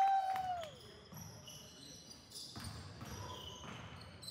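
Indoor basketball game: a loud, drawn-out shout in the first second, its pitch rising, holding, then dropping. Sneakers squeaking on the hardwood court and the ball bouncing follow.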